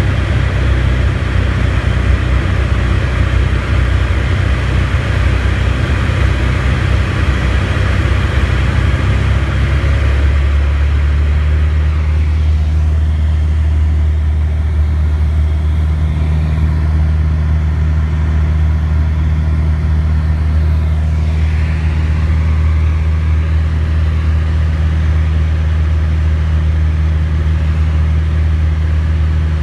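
Single-engine light aircraft's piston engine and propeller droning steadily, heard from inside the cabin. About ten to twelve seconds in the drone turns duller, with less hiss above, and then runs on evenly.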